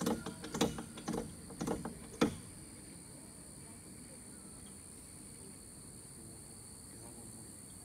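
Insects droning steadily at a high pitch. For the first two seconds a run of sharp clicks and knocks cuts across the drone, the loudest one just after two seconds in.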